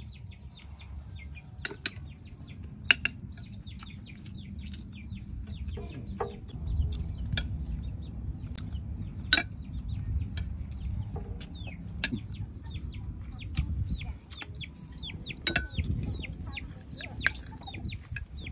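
Spoon and fork clinking against a plate in several sharp, separate clinks while eating, with chickens clucking in the background.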